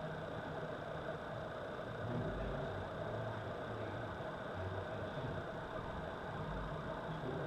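A steady mechanical hum with a faint constant tone over an uneven low rumble.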